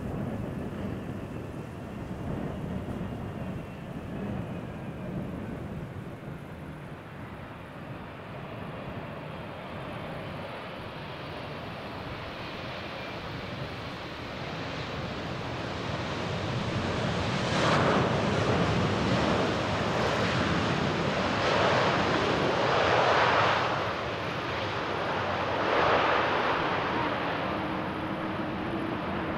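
Jet airliner landing: a low engine rumble with a faint falling whine, then louder rushing engine noise that swells in several surges over the last third.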